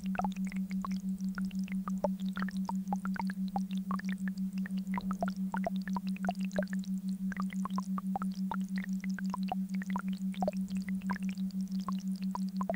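Synthesised beat tone: a steady low hum that pulses evenly about five times a second, with scattered short chirping tones at many higher pitches, some gliding up or down.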